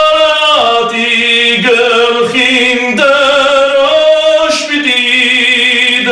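A man singing an Armenian song about the homeland and the nation without accompaniment, holding long notes that step up and down in pitch between short breaths.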